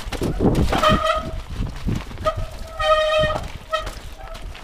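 Mountain bike brakes squealing in a steady high tone. There is a short squeal about a second in, a longer one from about two to three and a half seconds, and a brief chirp after that, over the rumble and clatter of tyres on a rough, rocky trail. The brakes are wet from heavy rain.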